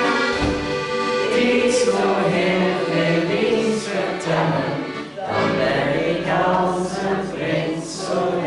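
Music: a Dutch-language sing-along song with instrumental accompaniment and a group of voices singing, between repeats of its refrain.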